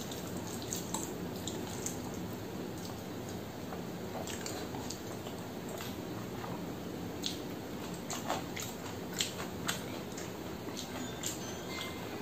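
Fingers mixing and squeezing soft, mushy rice on a steel plate, with eating sounds: faint wet squishes and scattered small clicks over a steady background hiss.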